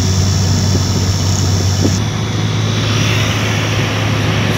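Steady engine and road noise of a moving vehicle, heard from inside it, with a constant low hum.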